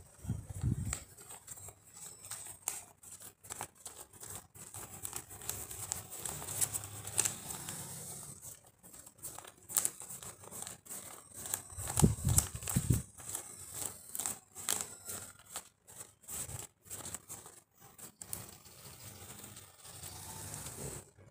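Paper banknotes being counted by hand: a steady run of quick, crisp flicks and rustles as the 100-peso bills are thumbed through one after another. A few dull bumps come near the start and again about twelve seconds in.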